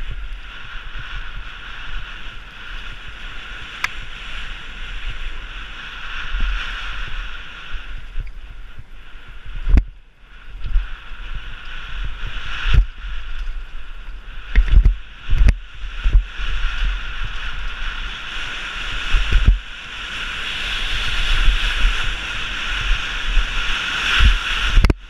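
Downhill mountain bike run: a steady rush of wind and tyre noise with gusts of wind buffeting the microphone, broken by several sharp knocks as the bike hits bumps on the rough track.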